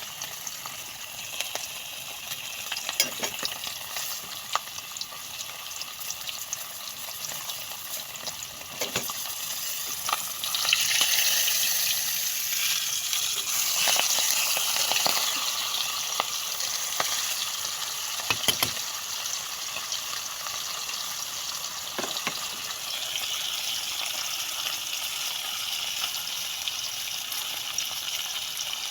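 Pompano frying in hot oil: a steady sizzle with scattered crackles and pops, growing louder about ten seconds in.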